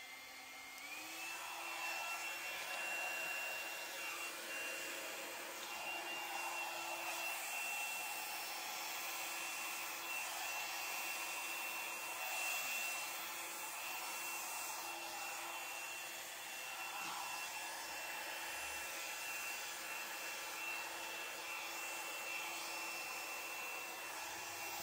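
Small handheld blow dryer running steadily, a motor whine over rushing air, blowing wet acrylic paint across a canvas. About a second in, its whine steps up in pitch, then holds steady.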